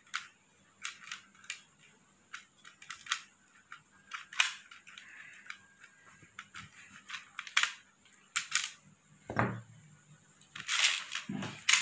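Small sharp metal clicks and snips from a wire cutter trimming and handling jewellery wire and gold-covered findings, scattered irregularly. A duller knock about nine and a half seconds in, like a tool set down on the plate.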